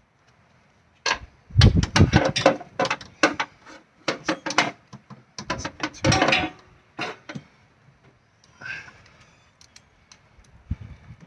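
Ratchet wrench and socket clicking and clinking against metal parts in quick runs, with a few heavier knocks, as spark plugs are being worked loose. The clicking stops about two-thirds of the way through, and a brief scrape follows.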